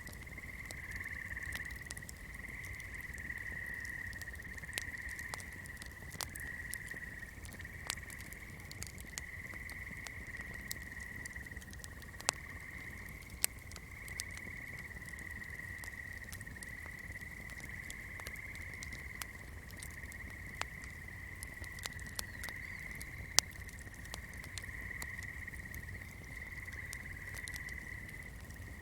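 Swamp night chorus: a steady, pulsing trill of many calling animals, with fire crackling in irregular sharp pops over it, a few of them louder.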